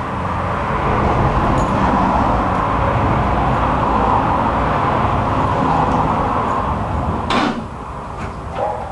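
Fiat 500L engine being cranked by its starter for about seven seconds after a long time unused, a car that won't start; the cranking stops with a sharp click and the level drops.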